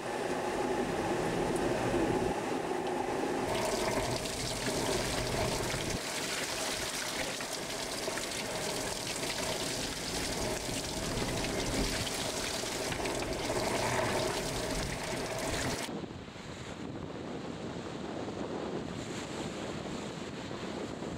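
Water rushing and splashing past the hull of an IMOCA 60 ocean racing yacht under sail, with a steady hum running under it. About sixteen seconds in, the sound changes abruptly to a duller wash of sea and wind.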